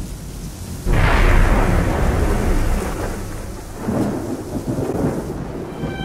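A thunderclap breaks about a second in and rumbles away slowly, with a second, weaker roll of thunder near four seconds, over steady rainfall.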